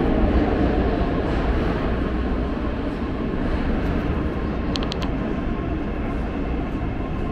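Metro train rumbling in the underground station, a steady low rumble that slowly fades. Three quick high beeps sound about five seconds in.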